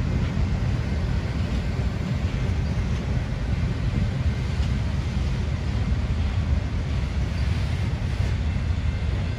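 Steady low rumble of a train running by, with no distinct horn or clear wheel clatter.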